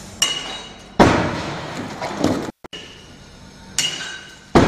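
Shock-table test: a 1.5-ton pendulum strikes the wheeled platform carrying a half-scale stone-masonry house, twice. Each time a short metallic clink comes just before a heavy bang, and loose stones and debris clatter for a second or so after it.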